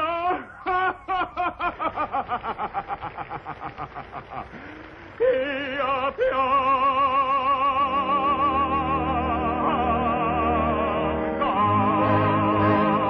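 Operatic singing: a quick run of short vocal pulses that slows and fades, then from about five seconds in, long held notes with wide vibrato.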